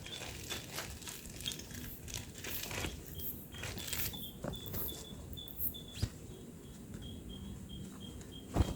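An insect chirping in short, evenly spaced high pulses a few times a second, starting about three seconds in. Faint rustling and light clicks run alongside, with a louder knock near the end.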